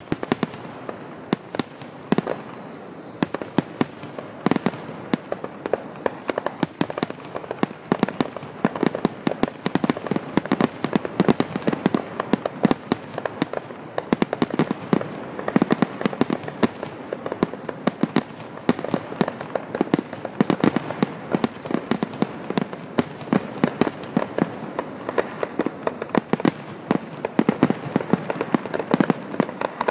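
Aerial fireworks display: shells bursting and crackling in a dense, unbroken run of bangs, several a second.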